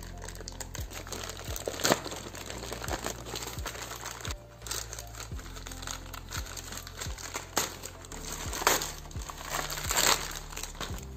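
Plastic courier mailer crinkling and tearing as it is ripped open and crumpled by hand, with sharp crackles, loudest about 2 seconds in and again near the end. Soft background music with a steady beat runs underneath.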